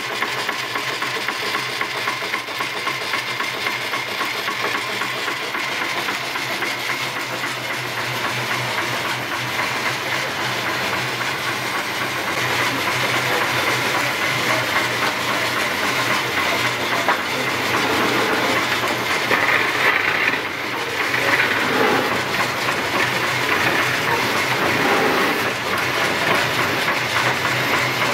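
Steam hissing as it is let into a coal-fired steam tug's cold engine to warm the cast iron up before running, over a steady low mechanical hum. The hiss grows louder about halfway through.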